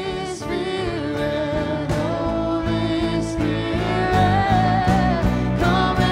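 Christian worship song: a singer over band accompaniment with a steady drum beat.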